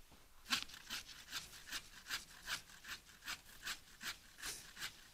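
Silky Gomboy folding pull saw cutting through a branch in steady back-and-forth strokes, about two and a half a second, starting about half a second in. The blade cuts on the pull stroke.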